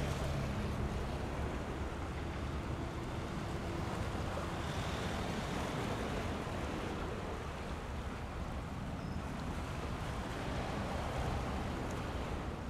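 Steady wind buffeting the microphone over waves washing against the shore, with a faint distant engine hum in the first few seconds.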